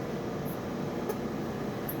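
Sciton BBL broadband-light unit running with a steady machine hum, with faint high ticks every half second to a second.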